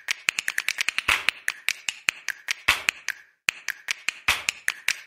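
Intro sound effect of rapid, dry clicking, about eight to ten clicks a second, with a heavier knock roughly every second and a half. There is a brief silent gap a little past the middle.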